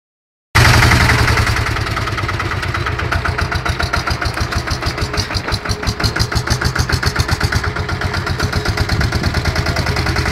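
Small Pasquali tractor's diesel engine running under load as it pulls a loaded trailer, with a fast, even pulsing beat. It comes in suddenly about half a second in.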